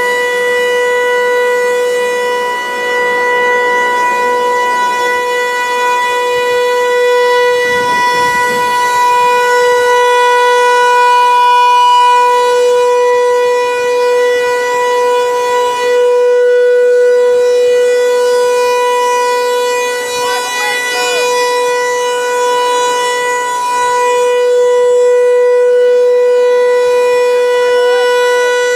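Federal Signal 508 outdoor warning siren sounding a steady alert on one unchanging pitch, its loudness swelling and dipping slightly.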